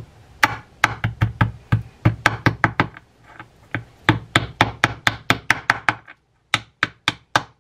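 Small plastic-faced mallet rapidly tapping a pressed-in collar into a fishing reel's main gear, about four or five light taps a second in runs, sparser near the end.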